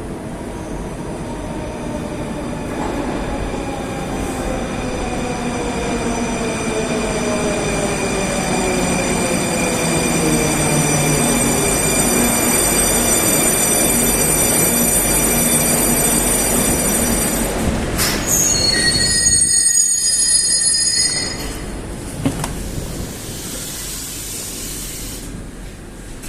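Rusich metro train's electric traction drive whining down in pitch as the train brakes, growing louder, then a high squeal about eighteen seconds in before it comes to a stop, leaving a quieter steady hum.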